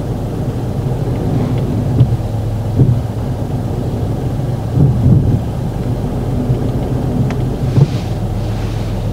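Car engine running steadily, heard from inside the cabin as a low, even hum, with a few light knocks.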